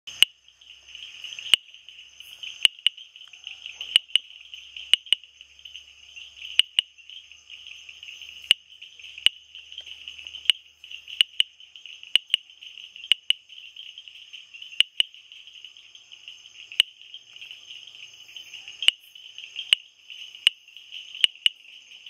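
Bombay bush frog calling: sharp, loud clicks like typewriter keys, singly or in quick pairs every second or two. A steady high-pitched insect trill runs underneath.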